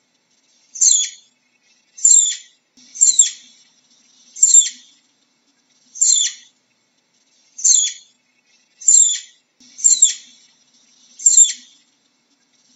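Flying squirrel calling: a series of short, high-pitched chirps, each sliding downward in pitch, repeated about once every second or so, nine in all.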